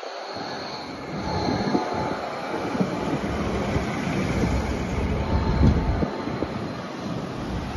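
Modern low-floor electric tram passing close by on street track: a rolling rumble of wheels on rail, growing louder about a second in, with a faint high whine over it.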